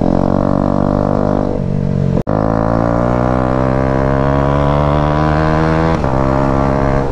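Single-cylinder motorcycle engine with a modified, very loud exhaust, under way. The sound cuts out for an instant a little past two seconds in, then the note climbs steadily as the bike accelerates, drops briefly about six seconds in as it shifts gear, and holds steady after.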